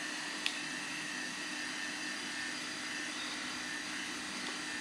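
Steady background hum and hiss of room noise with a faint constant tone in it, and a single short click about half a second in.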